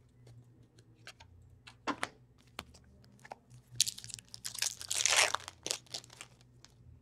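Trading cards being handled, with scattered light clicks and flicks. From about four to six seconds in comes a stretch of crinkling wrapper, the loudest sound.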